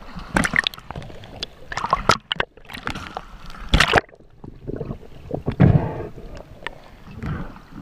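Sea water splashing and sloshing against a camera held at the surface as a swimmer strokes through choppy water, in irregular bursts. About four seconds in it turns to muffled underwater sound, with a low thump.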